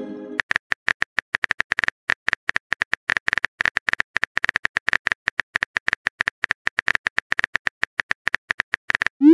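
Rapid, uneven keyboard tap clicks from a texting-app typing sound effect as a message is typed letter by letter. A chime fades out at the start, and a short rising swoosh begins right at the end as the message is sent.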